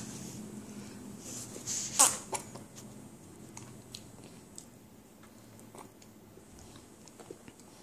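A fork clicking and tapping against a plastic high-chair tray: one sharp clack about two seconds in, then lighter scattered ticks.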